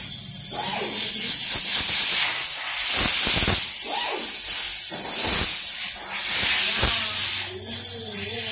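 A loud, steady hiss, like air or spray, runs throughout, with a few dull low knocks in the middle.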